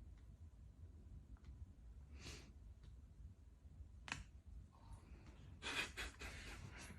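Near silence: faint room tone with a low hum, broken by a soft breath-like noise about two seconds in, a faint click about four seconds in and a few faint rustles near the end.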